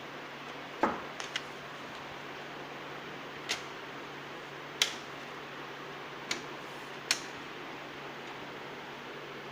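About seven sharp clicks and knocks at irregular intervals over a steady hiss, the loudest about a second in: hardware being handled while a Lenovo ThinkCentre desktop is opened for a RAM upgrade.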